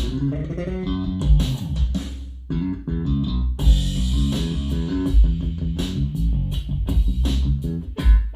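Solo electric bass guitar music played back over a hi-fi system with a REL subwoofer. It has deep, heavy low notes and many sharp plucked attacks.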